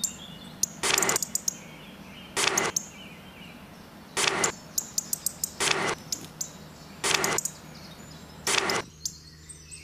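Paper banknotes being counted out by hand, a short papery rustle as each note is peeled off and passed over, six times about every one and a half seconds.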